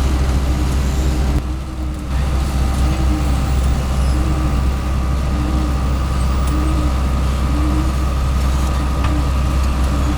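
Heavy diesel engines of road-paving machinery running steadily: a low hum with a short pulse repeating about once a second. The sound dips briefly about one and a half seconds in.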